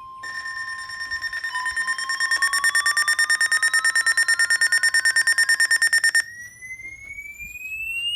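Electronic alert tones layered together. A steady beep tone is joined about a quarter second in by a loud, rapidly pulsing alarm, several pulses a second, and a siren-like tone that slowly climbs in pitch. The pulsing alarm cuts off abruptly about six seconds in, while the rising tone keeps going.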